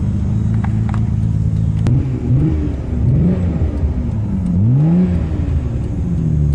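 Car engine heard from inside the cabin, droning steadily, then revving up and back down three times in smooth swells of pitch.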